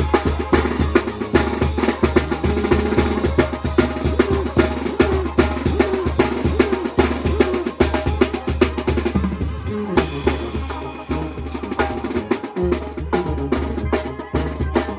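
Music with a drum kit played prominently: a steady, fast bass-drum beat under snare and cymbal strikes, with pitched band instruments behind it.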